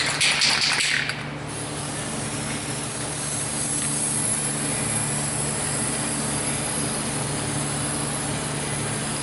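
Aerosol can of High Tack gasket adhesive spraying a coat onto a transmission pan gasket: one long, steady hiss, louder and uneven for the first second or so.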